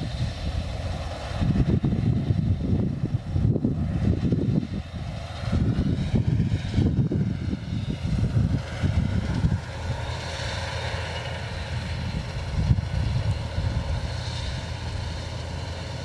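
New Holland combine harvester running, a steady machine drone with a faint whine, under wind gusting on the microphone.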